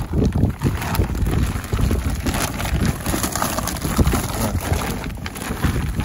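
Plastic Easter eggs clattering against one another in a rapid patter as they are poured from one reusable shopping bag into another, with the bags crinkling. Wind buffets the microphone throughout.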